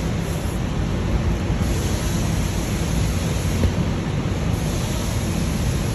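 Steady rushing noise with a low rumble underneath, unbroken and even.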